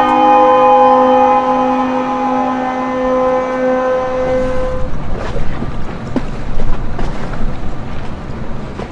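Ship horns sounding one long chord of several held notes, which drop out one after another about four to five seconds in. After that, a low rumble of water and wind with scattered knocks as the hull moves into the water.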